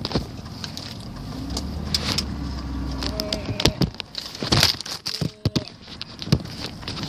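Low, steady rumble of a car heard from inside the cabin, with sharp clicks and knocks from things being handled close to the phone's microphone.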